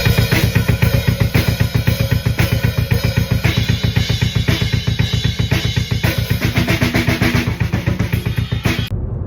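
Background music with a fast, heavy drum-kit beat of bass drum, snare and cymbals. It cuts off suddenly near the end, leaving a low rumble.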